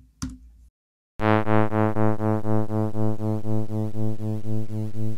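Computer-synthesized note from a discrete summation formula with upper and lower sidebands, carrier 110 Hz and modulator 108 Hz. It starts abruptly about a second in as a buzzy tone rich in overtones and pulses about twice a second, the beat of the 2 Hz offset between carrier and modulator. Its upper overtones fade as the note decays.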